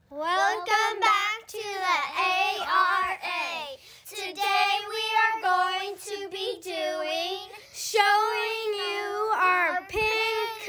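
A child singing a short unaccompanied tune in a high voice, holding notes with a slight waver, in several phrases with brief breaks between them.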